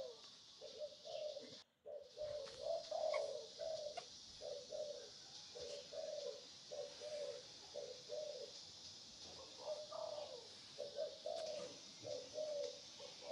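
Doves cooing: a long run of short, repeated coo notes, several a second, over a steady high hiss. The sound drops out completely for a moment about two seconds in.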